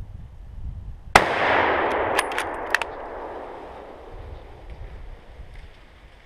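A single hunting rifle shot, its echo rolling through the woods and fading over a few seconds. About a second after the shot come several sharp metallic clicks.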